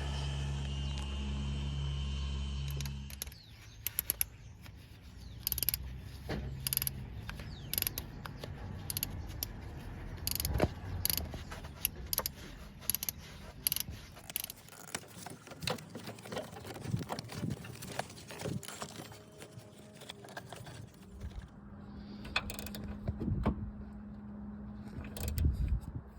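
Hand tools working on engine parts: irregular metallic clicks, taps and short runs of ratchet-like clicking. A steady low hum runs for about the first three seconds and then stops abruptly.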